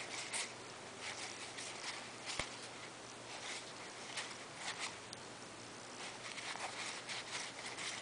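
Yu-Gi-Oh trading cards being flipped through by hand, card sliding against card in soft, irregular scratches and flicks, with one sharper click about two and a half seconds in.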